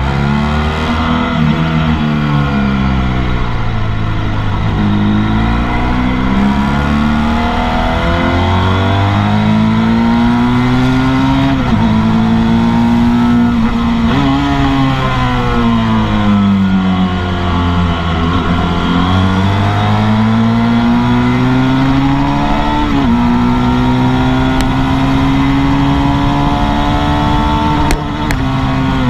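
Motorcycle engine on a race circuit, revving hard under acceleration and then falling away as it slows for corners. Its pitch climbs steadily and drops suddenly at gear changes, about a third of the way in and again near the three-quarter mark. Under it runs a steady rush of wind.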